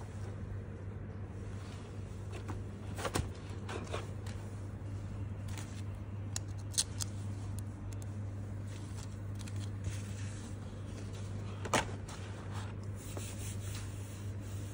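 Hands handling a card binder with plastic sleeve pages and its tissue-paper wrapping: scattered rustles and a few sharp taps, over a steady low hum.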